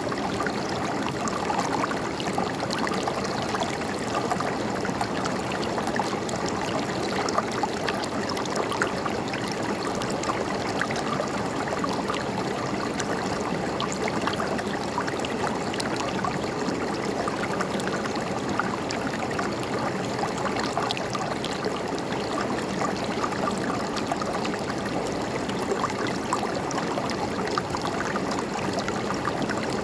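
River water flowing and gurgling over rocks, a steady rush with fine splashing.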